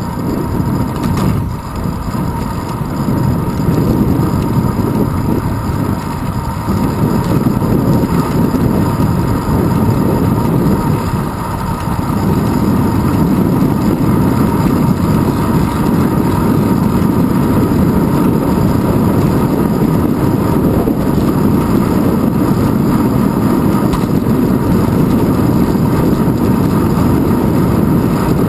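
Wind buffeting and road vibration picked up by a handlebar-mounted GoPro Hero 2 on a moving bicycle: a steady, loud low rumble that grows louder after about twelve seconds as the bike picks up speed.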